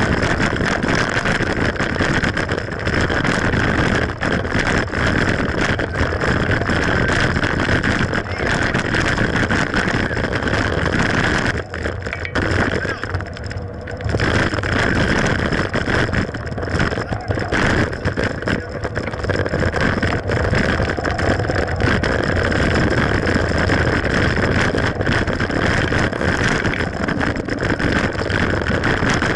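Mountain bike riding over rough trail: a steady rush of wind on the microphone with constant rattling and knocks from the bike, easing for a couple of seconds about twelve seconds in.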